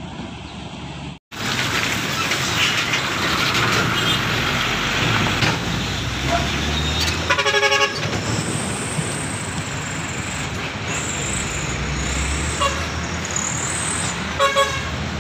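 Intercity bus and road traffic approaching along the highway, with steady engine and tyre noise. A horn sounds twice in short bursts of rapid pulsing beeps, about seven seconds in and again near the end.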